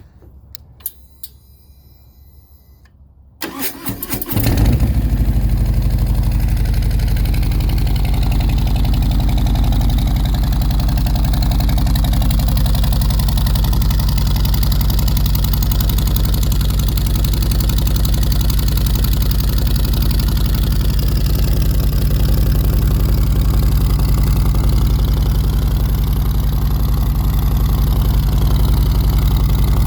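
Harley-Davidson V-twin motorcycle engine, breathing through Samson fishtail exhaust pipes with Reaper tips, cranked on its starter about three and a half seconds in after a couple of light clicks. It catches a second later and then idles steadily and evenly.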